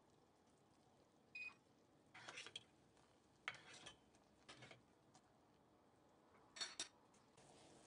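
A metal spoon clinking and scraping against a stainless steel pot while stirring, in several brief strikes spread out, the last two close together near the end.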